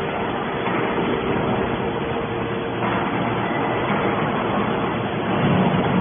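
TCM hydraulic metal scrap baler running, a steady hum with a faint whine from its hydraulic power unit. It grows a little louder near the end.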